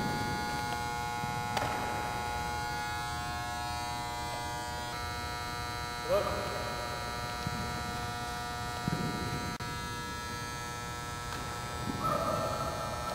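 Steady electrical hum with a buzz of many overtones, with a few faint knocks and a brief thump about six seconds in.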